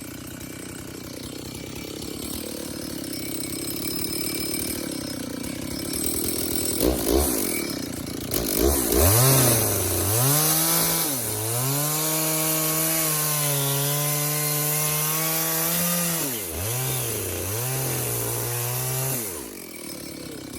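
Two-stroke chainsaw ticking over, then revved up and cutting into wood from about nine seconds in, to test a freshly hand-sharpened chain. The engine pitch sags and recovers several times as the chain bites, and the engine drops back near the end.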